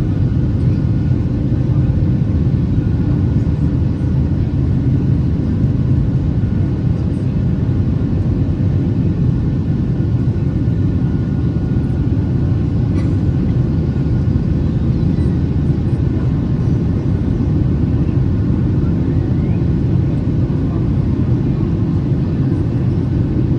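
Steady low rumble of a Boeing 737-800's CFM56 engines and airflow, heard inside the passenger cabin in flight, with a faint steady whine above it.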